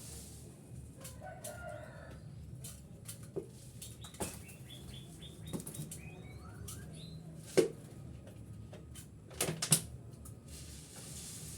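Zebra doves (perkutut) flapping their wings in short flutters as they fly in and land, several sharp bursts with the loudest about two-thirds of the way in and a quick cluster near the end. Small birds chirp faintly between them.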